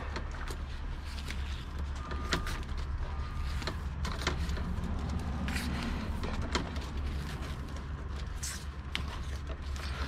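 Flat fiber optic drop cable being pulled and handled with gloved hands: scattered clicks and scrapes over a steady low rumble.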